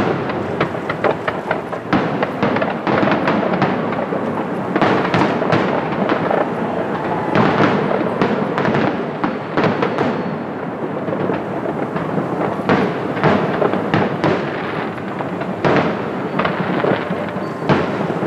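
Aerial fireworks display going off: a dense, rapid run of shell bursts, booms and crackling with hardly a pause.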